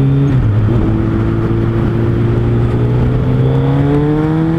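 Suzuki Hayabusa's inline-four engine pulling the bike along, over a rush of wind. Its note dips briefly just after the start, then rises slowly and steadily as the bike gathers speed.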